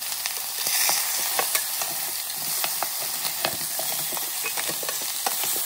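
Pork ribs and daikon chunks sizzling as they sear in an Instant Pot's inner pot on the sauté setting. A wooden spatula stirs them, with many short clacks against the pot.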